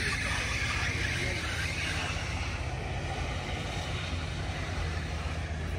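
A motor vehicle engine running with a steady low rumble, with a hiss of road noise that fades away over the first couple of seconds as it moves off.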